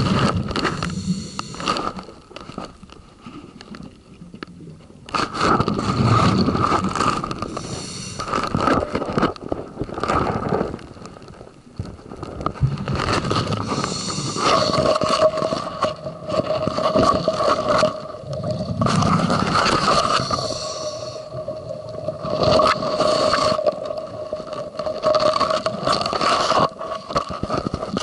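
Scuba diver breathing through a regulator underwater: a loud breath cycle every five or six seconds, with rumbling bursts of exhaled bubbles. About halfway through, a steady hum sets in.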